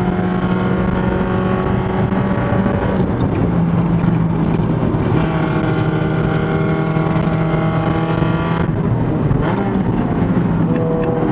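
Mazda Miata race car's four-cylinder engine running hard at racing speed, heard from inside the stripped cabin along with road and wind noise. The engine note holds mostly steady and shifts in pitch a few times, about a third of the way in and again near the end.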